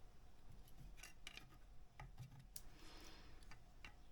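Near silence with a few faint clicks and a soft rub near three seconds in: small metal and plastic router parts being handled.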